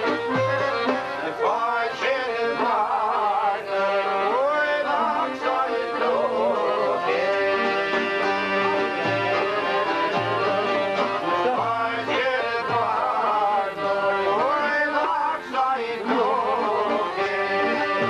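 Albanian folk music played on long-necked plucked lutes, a sharki and a çifteli, strummed in a steady rhythm under an ornamented, wavering melody.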